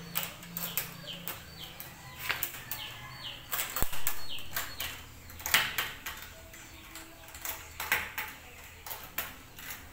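Metal butterfly latches on a plywood flight case being flipped and snapped shut and open: a series of sharp metallic clicks and clacks, irregular and a few seconds apart, with a louder clack a little before halfway.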